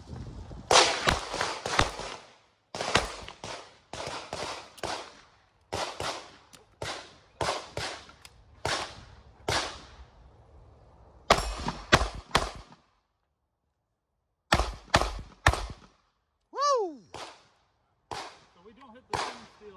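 Handgun fired in quick strings of shots, several shots to a string with short breaks between them, and a near-silent pause about two-thirds of the way through before the firing picks up again.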